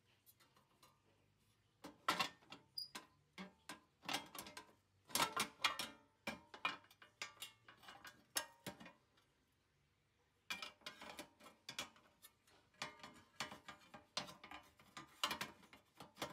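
Clicking and knocking on the metal body of a portable butane gas stove as it is handled, in two runs of quick small impacts with a short pause between them.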